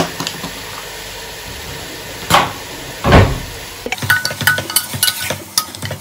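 Mutton and onions sizzling in a pressure cooker pan, with a couple of dull thumps a little past two and three seconds in. From about four seconds, a steel ladle stirs the meat, scraping and clinking against the pot several times a second.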